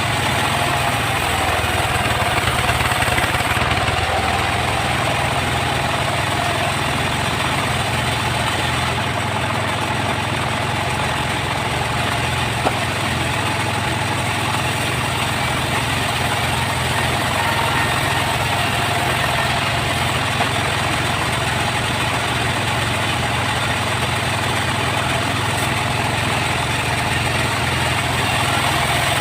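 Engine-driven sawmill running steadily at an even pitch.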